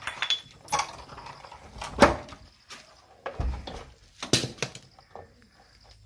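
Irregular clicks, taps and knocks of hands and a screwdriver working wires into a wall-mounted electrical switch box, the loudest about two seconds in.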